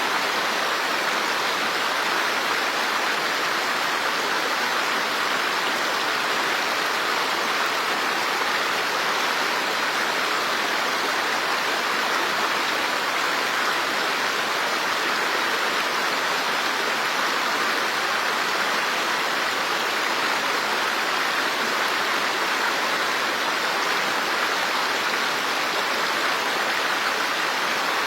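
Steady rush of running water: an even, unbroken hiss with no separate splashes or drops standing out.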